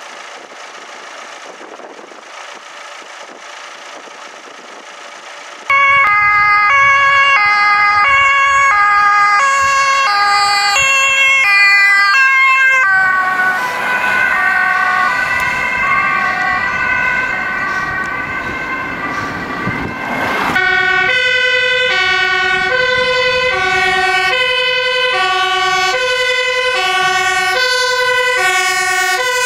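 Two-tone sirens of Dutch emergency vehicles on an urgent run, alternating high and low notes. The sirens start suddenly a few seconds in after a quieter hiss, and a tangle of siren tones fills the middle. About two-thirds in, a slower, lower two-tone siren takes over, switching roughly every second and a half, from a MAN fire engine.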